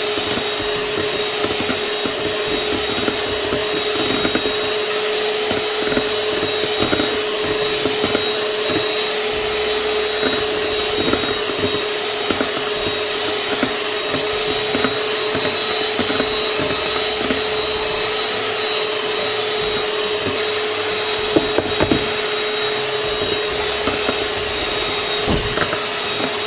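Electric hand mixer running steadily, its beaters whipping egg whites in a plastic bowl: a constant motor whine over a whirring hiss, with a few brief clicks about three-quarters of the way through.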